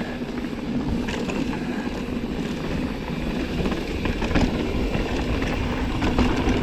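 Mountain bike riding down a dirt trail: steady wind rumble on the camera microphone, the rolling noise of the tyres on dirt, and short clicks and rattles from the bike over bumps.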